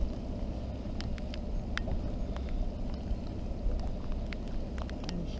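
Steady low rumble of a small boat's outboard motor idling in neutral, with scattered sharp ticks over it.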